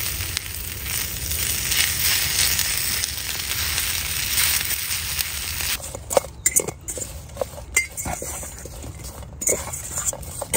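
Diced potatoes sizzling as they fry in a pan over a campfire, stirred with a wooden utensil. About six seconds in the sizzle stops and gives way to scattered clinks and scrapes of a utensil tossing the potatoes in a steel bowl.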